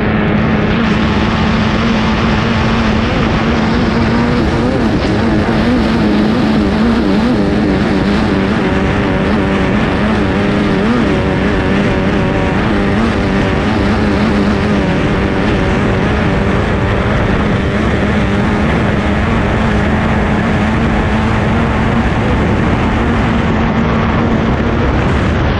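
Formula 2500 racing hydroplane's 2.5-litre outboard engine running at full throttle at a steady pitch, heard from on board the boat, with wind and water rush over it.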